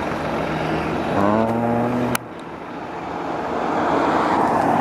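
A truck's engine revs briefly about a second in, a pitched drone rising slightly over steady outdoor noise, and cuts off abruptly. Then a rushing noise swells toward the end.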